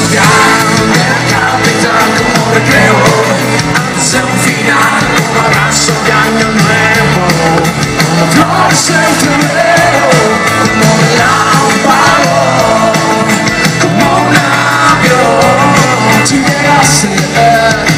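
Live rock band playing loudly: electric guitar and drums, with a voice singing over them.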